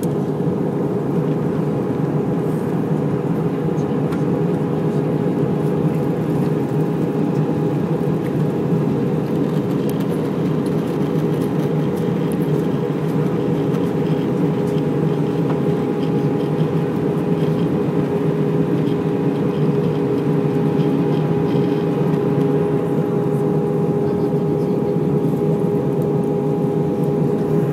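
Steady cabin noise of an Airbus A320 in descent, heard inside the cabin by a window seat: engine and airflow rumble with a steady hum carrying a couple of held tones.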